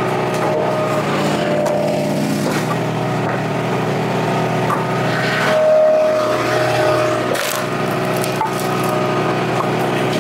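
Engine of a Wolfe Ridge 35 HO log splitter running steadily while it splits ash rounds. A high whine swells about halfway through as the splitter works, and split wood knocks and clatters onto the table now and then.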